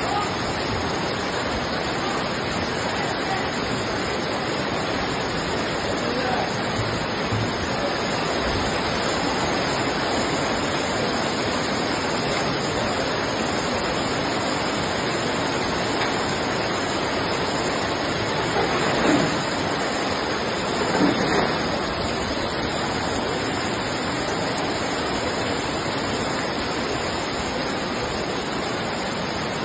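Floodwater rushing through a street: a steady, even rush of fast-flowing water.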